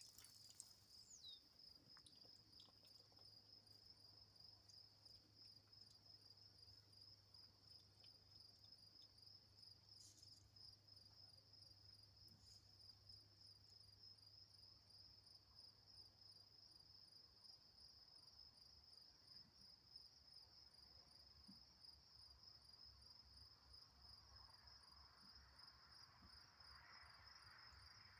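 Faint, steady chirring of crickets: a continuous, finely pulsing trill.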